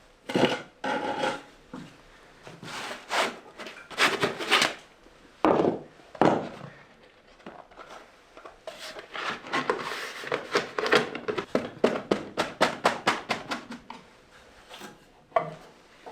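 Irregular wooden knocks, scrapes and rubbing, with a quicker run of light clicks in the middle; no sanding machine running.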